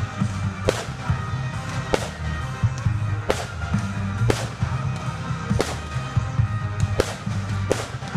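Fireworks going off in a rapid, irregular series of sharp bangs and crackles, about one big bang a second, over loud music with a heavy bass line.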